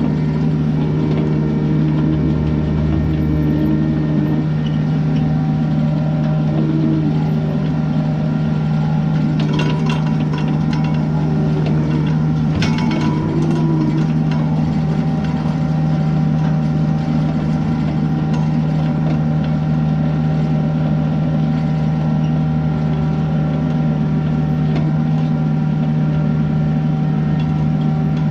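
Excavator's diesel engine running steadily at a constant speed, with a few short metallic clanks about ten and thirteen seconds in.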